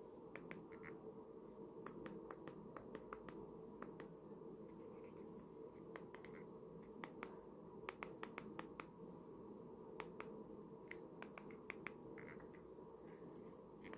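Faint, irregular clicks of a flip phone's keypad buttons pressed one after another while scrolling through menus, thicker in two runs in the second half, over a low steady room hum.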